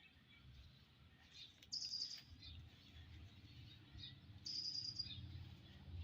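A small bird's high, buzzy trill, heard twice and faint, each lasting about half a second, over a low background rumble.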